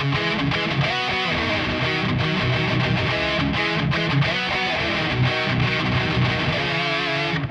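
Instrumental rock music led by distorted electric guitar, strummed over a steady bass. It cuts off near the end and dies away within about half a second: the end of the song.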